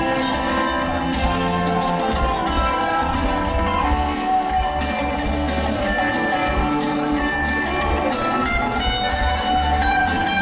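Live rock band playing: a hollow-body electric guitar over bass and drums.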